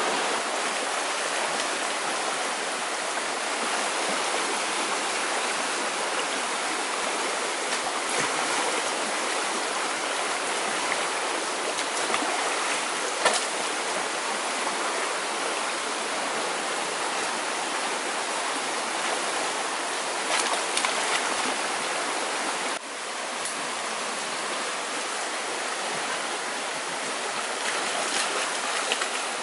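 Shallow forest stream rushing steadily over rocks, with a few short splashes and knocks as people wade through the water and strike at it with sticks.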